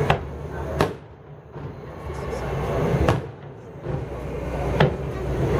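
Aerial fireworks shells bursting: four sharp bangs, right at the start, just under a second in, about three seconds in and near five seconds, with a low rumble between them.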